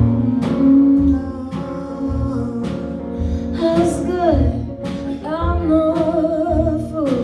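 Live song with guitar accompaniment: a singer holds long wavering notes over a steady beat and pulsing low bass notes.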